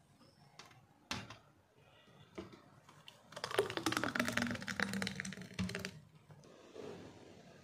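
A thick, foamy blended drink poured from a blender jug into a glass mug: a single knock about a second in, then about two and a half seconds of wet, crackling glugging whose pitch drops as the jug empties.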